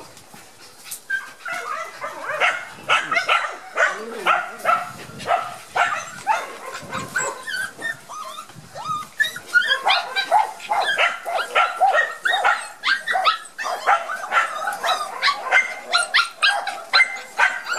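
Border Collie puppies yelping and whining in high, short calls, several a second and overlapping. The calls begin about a second in and grow busier in the second half.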